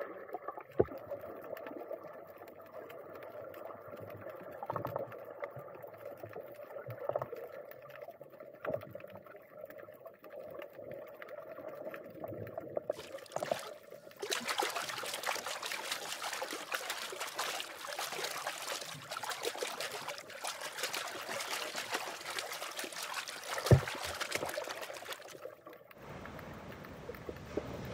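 Water heard through a submerged camera: muffled water movement with faint knocks at first, then, about halfway through, a louder crackling, fizzing hiss of water and bubbles. One sharp knock comes near the end.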